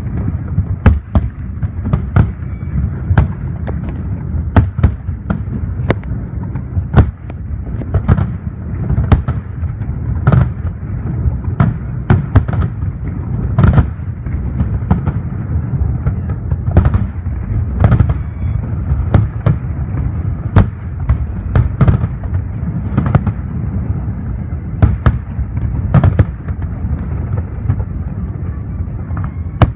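Aerial fireworks going off in rapid succession: many sharp bangs and cracks, several a second, over a continuous low rumble of distant booms.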